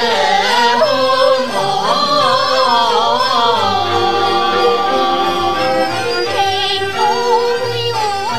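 Teochew opera aria: a woman sings a winding, ornamented melodic line with vibrato over sustained ensemble accompaniment, settling into steadier held notes in the last couple of seconds.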